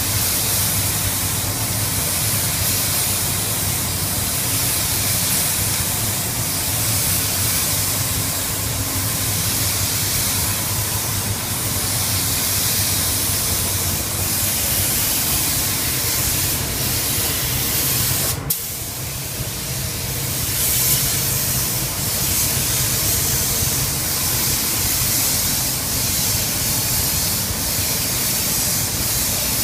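Spray gun hissing steadily as it sprays waterborne basecoat paint, cut off briefly once a little past the middle before it resumes.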